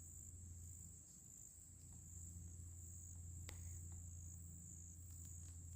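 Faint, steady chorus of crickets trilling in one unbroken high band, over a low hum, with a single small click about three and a half seconds in.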